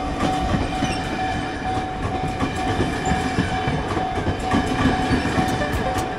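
Train passing close by, its wheels clattering steadily over the rails in a dense rumble, with a steady ringing tone held over it for most of the time.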